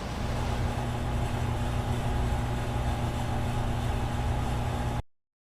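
A steady low machinery hum with a few held tones, which cuts off suddenly about five seconds in.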